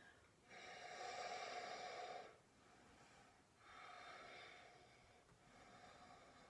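A woman's faint, slow breathing: one long breath about half a second in lasting nearly two seconds, a second about three and a half seconds in, and a softer one near the end.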